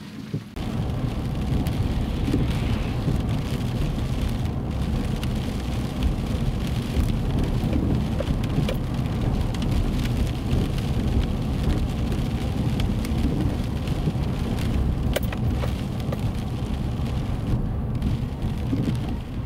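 Heavy downpour in strong wind: a dense, steady rush of rain with a heavy low rumble and many sharp raindrop ticks. It starts abruptly about half a second in.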